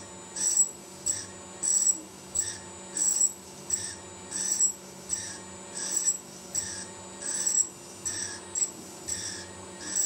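Twist drill boring into a spinning 1-inch aluminium part on a homemade CNC mill run as a lathe, in a repeated pecking rhythm: short rasping bursts of cutting about three every two seconds over the steady whine of the spindle.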